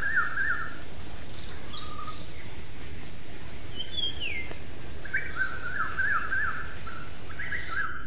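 Songbirds singing: a warbling song of quick repeated up-and-down notes near the start and again from about five seconds in, with a couple of separate whistled notes that slide downward in between.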